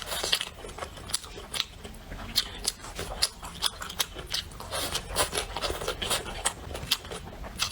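A person eating close to the microphone: chewing and biting, with frequent irregular crisp clicks and smacks.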